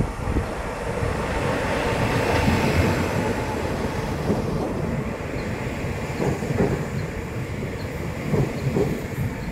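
Electric multiple unit pulling slowly into the platform and passing close by: the rumble of its wheels on the rails, with a steady hum from the train.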